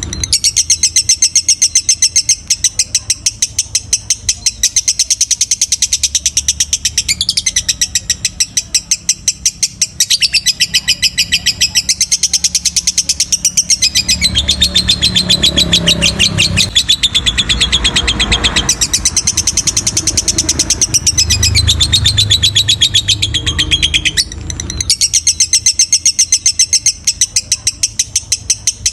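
Lovebird singing a long, unbroken chattering song of fast repeated notes, about four to five a second. The song breaks off only briefly about 24 seconds in.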